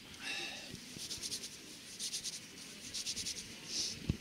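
Faint, quick rubbing or scratching strokes in short clusters, with a dull thud at the very end.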